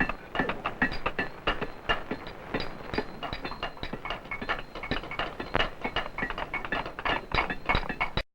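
Rapid, irregular metallic tapping and clinking, several strikes a second, some with a short ring, like hand tools working on metal; it cuts off suddenly near the end.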